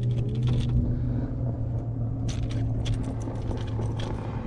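Steady low hum of the boat's motor, with scattered sharp clicks and rattles in the second half as a hooked bass is worked free in a landing net.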